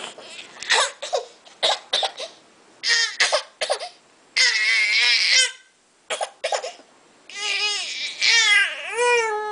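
Infant crying and fussing at being spoon-fed. Short, broken sobs come first, then a longer wail about halfway, and drawn-out high wails near the end.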